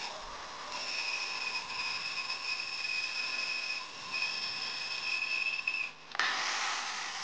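Bandsaw cutting through a log of hard Osage orange: a steady high-pitched whine over a hiss as the blade runs through the wood. It breaks off briefly about six seconds in and gives way to a louder rushing hiss.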